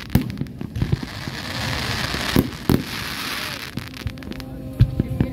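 Aerial fireworks going off: a string of sharp bangs from bursting shells, with a hissing crackle from about one and a half to three and a half seconds in. The loudest bangs come a little past the middle and shortly before the end.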